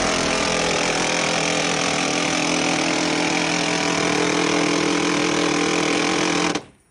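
Minigun, an electrically driven rotary-barrel machine gun, firing one long continuous burst: a steady, dense stream of shots too fast to tell apart, cutting off abruptly near the end.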